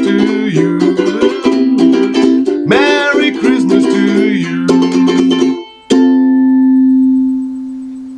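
Ohana ukulele strummed in a steady rhythm as the song closes, the strumming stopping about five and a half seconds in. Then one final chord is strummed and left to ring, slowly fading away.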